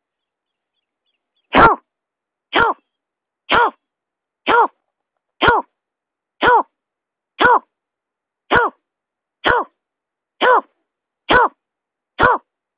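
Snipe lure call: a snipe's short call repeated about once a second, each note rising and falling slightly in pitch, starting about a second and a half in. It is the kind of recording played to draw snipe in.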